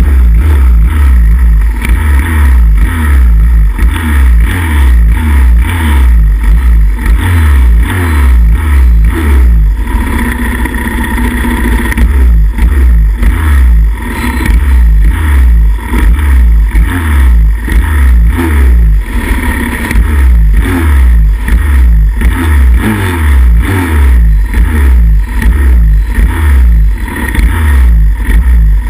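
Pit bike's single-cylinder four-stroke engine, stationary at the start gate, revved in repeated throttle blips, with a longer held rev about a third of the way in. It is loud and close, picked up by a camera on the handlebars.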